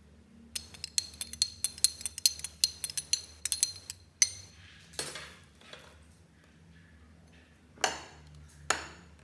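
Metal spoon stirring in a drinking glass, clinking rapidly against the glass with a bright ring for about three and a half seconds. A few softer knocks follow, then two duller knocks near the end.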